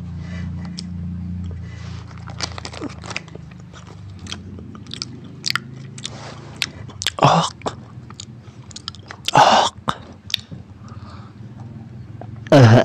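Close-up mouth sounds of a person biting and chewing food: many short crunchy clicks and wet smacks, with a few louder bites, and a short voiced sound with falling pitch near the end, over a steady low hum.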